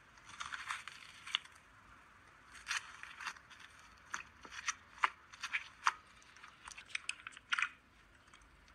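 Crisp crunching and crackling as fingers press into and break soft white foam cubes soaked in blue liquid: sharp, irregular clicks, some in quick clusters, with the loudest ones around the middle.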